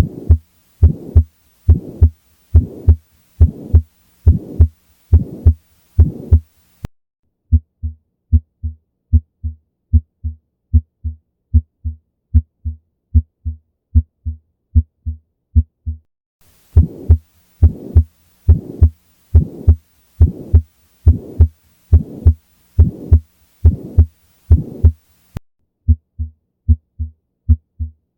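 Recorded heartbeats alternating between two recordings. In one, a pulmonary stenosis heart has a harsh murmur filling the gaps between the beats. In the other, a normal heart gives clean lub-dub pairs with silence between them. The sound switches to the clean beats about 7 seconds in, back to the murmur at about 16 seconds, and to clean beats again near the end.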